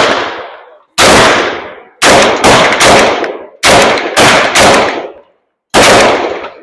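Micro Draco AK pistol fired semi-automatically with a newly installed ALG trigger: about eight loud shots at an uneven pace, some in quick pairs and triplets about half a second apart, each with a short echoing tail.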